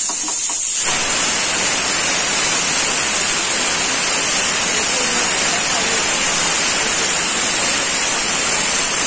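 Vada batter frying in hot oil in a kadai: a loud, steady sizzle that starts abruptly about a second in as fresh batter is dropped in.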